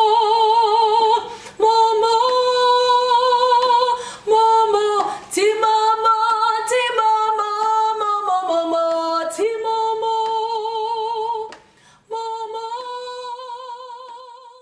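A woman singing unaccompanied. She holds long notes with a wavering vibrato, with a few short breaks for breath between phrases.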